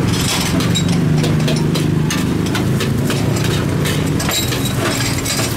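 A metal spatula and ladle scraping and clanking against a wok as fried rice is stir-fried, in repeated short strokes. A steady low engine-like hum runs underneath.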